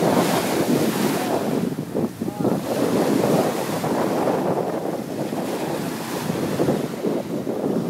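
Surf breaking and washing up the beach, with wind buffeting the microphone; a bigger wave crashes near the start.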